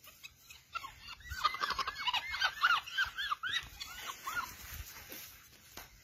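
Monkeys giving a rapid run of high, squeaky, arching calls, about four or five a second, for some three seconds, then falling quiet.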